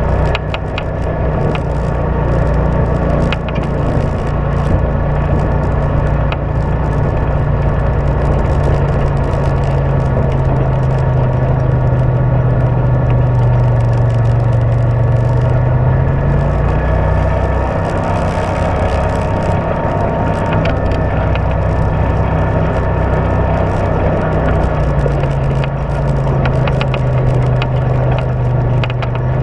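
Side-by-side UTV engine running at trail speed on a dirt track, its note falling and rising a couple of times as the throttle changes. Frequent small clicks and rattles run through it.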